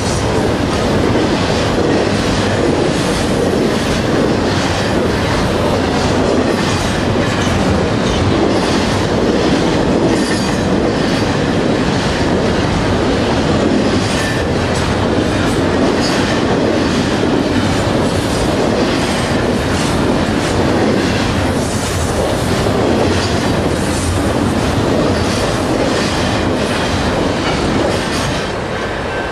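Double-stack intermodal freight train's well cars rolling past, a steady rumble with the wheels clicking rhythmically over rail joints; the sound eases slightly near the end as the train draws away.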